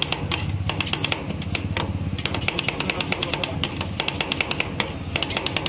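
Two metal spatulas chopping fruit into the cream mix on the steel cold plate of a rolled ice cream machine. It is a rapid clatter of metal striking metal, several strikes a second, broken by short pauses.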